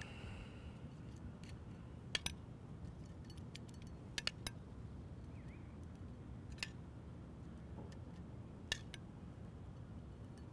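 A metal spoon gives a few light, scattered clinks against a small stainless steel saucepan and a plate as sauce is spooned out, over faint steady background noise.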